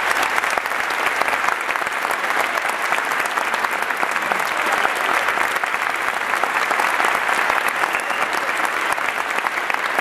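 Audience applauding steadily, many hands clapping in a large hall.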